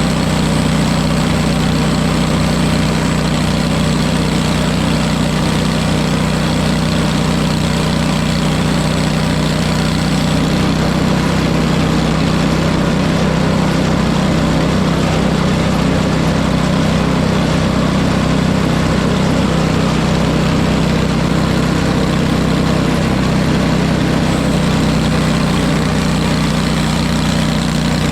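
An engine running steadily at a constant speed, with an unchanging low hum and no breaks.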